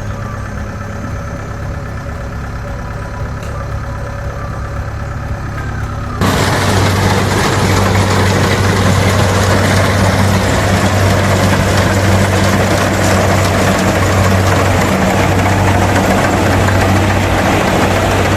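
An engine running steadily, which gets suddenly much louder and rougher about six seconds in and keeps running hard.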